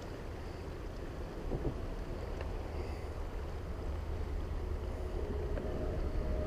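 Wind buffeting the microphone over the steady rush of river water running through riffles, with a faint steady hum coming in near the end.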